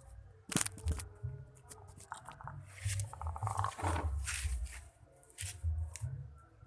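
Handling noises: clicks, rustles and low thumps. About three seconds in there is a brief raspy call, likely from a chicken.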